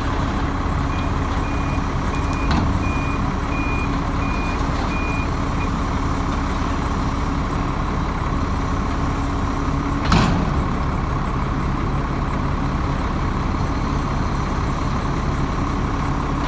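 Case 470B excavator's diesel engine running steadily under load as it works waste, with a backup alarm beeping about six times early on and one loud bang about ten seconds in.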